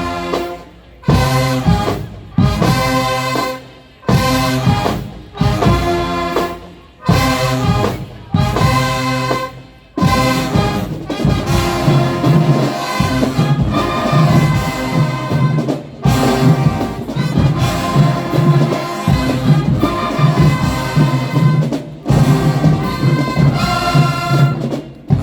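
High school marching band's brass section warming up: a series of short held chords with brief breaks between them, then, about ten seconds in, a continuous chorale-like passage.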